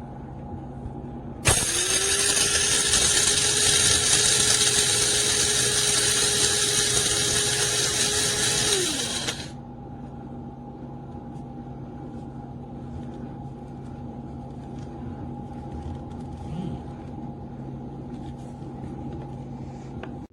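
Small electric blade grinder's motor switched on, spinning up quickly and running steadily for about seven seconds with a loud grinding noise, then winding down. A steady low hum continues underneath.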